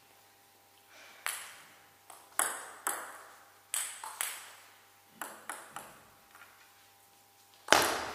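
Celluloid-type table tennis ball ticking with scattered single bounces as the server readies, then a serve and a fast exchange of louder bat-and-ball hits near the end.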